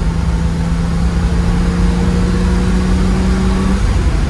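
Ferrari 330 GT 2+2's V12 engine pulling steadily under way, freshly tuned with its throttle cable adjusted to open fully. Its note climbs slowly in pitch, then drops about four seconds in, as at a shift or lift of the throttle.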